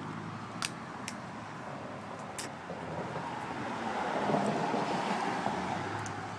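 Road traffic: a car going by, swelling about halfway through and fading near the end, over a steady outdoor hum, with a few short sharp clicks in the first couple of seconds.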